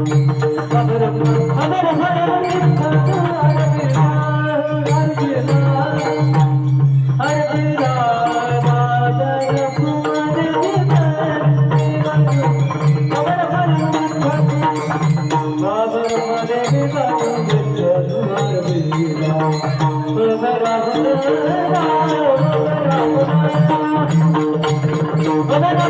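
A male devotional singer sings a Marathi bhajan melody in the Bhairavi tune, with long bending held notes over a steady drone and hand-drum percussion keeping time.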